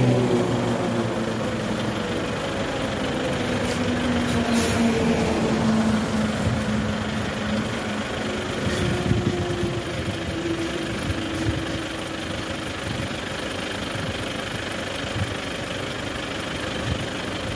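Steady motor vehicle engine and road noise, with a low hum that slowly sinks in pitch over the first several seconds and a couple of brief clicks about four seconds in.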